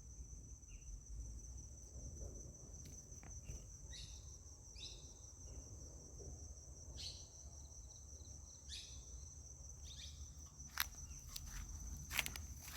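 Faint jungle ambience: insects trilling in a steady, high-pitched drone, with a few short chirps here and there.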